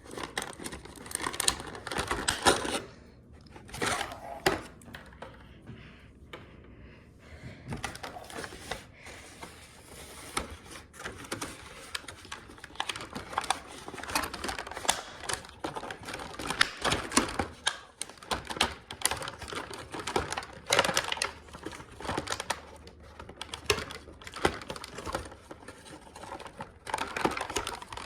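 Plastic toy packaging being handled and opened: irregular clicking, tapping and crinkling, quieter for a few seconds near the start.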